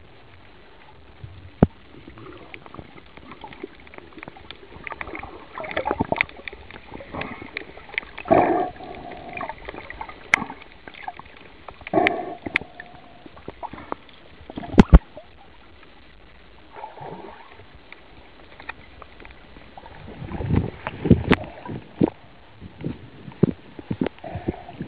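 Muffled water sounds picked up by a camera held underwater: irregular gurgling and sloshing bursts with scattered sharp knocks and clicks, the loudest click about fifteen seconds in.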